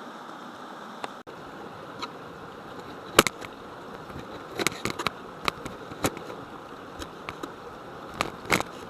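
Wood fire crackling: a steady hiss with irregular sharp snaps and pops, the loudest about three seconds in.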